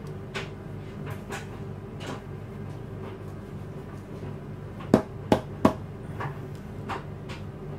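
Short sharp knocks and clicks of a plastic piping-nozzle cutter pressed into thick gum paste and against the cutting mat and worktop, with three loud taps in quick succession about five seconds in. A steady low hum runs underneath.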